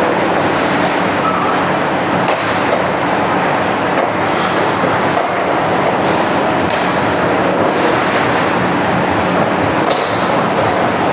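Automatic punching machine running on steel plate, a loud steady mechanical din with a few sharp metallic clanks several seconds apart.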